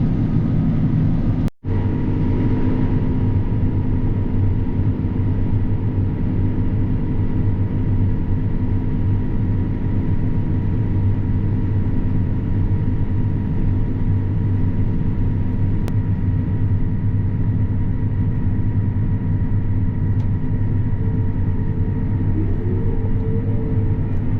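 Combine harvester running steadily: a constant machine drone with a hum that holds one pitch, broken by a brief dropout about a second and a half in.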